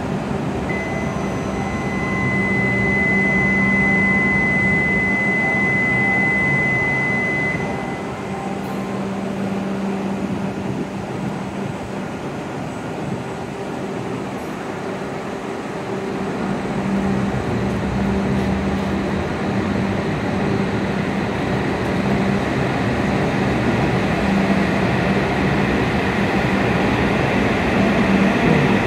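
An E7 series Shinkansen train standing at a station platform: a steady low hum from the stopped train under station ambience. A high, steady tone sounds for about seven seconds early on, and the noise grows louder in the second half.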